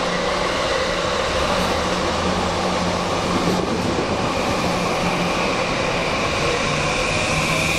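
Electric commuter train moving along the station platform, with a steady rumble of wheels on rails. A thin whine rises slightly near the end.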